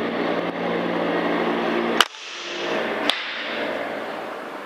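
A single sharp crack of a PCP air rifle shot about two seconds in, with a second, weaker click about a second later. A steady machinery hum with several fixed tones runs underneath.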